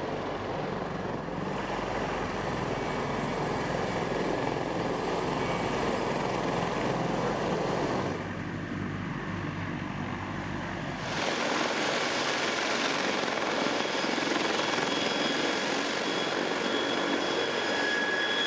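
Sikorsky CH-53K King Stallion heavy-lift helicopter running on the ground, its three turboshaft engines and turning rotors making a steady, dense noise. The sound changes abruptly twice, and a thin high turbine whine stands out near the end.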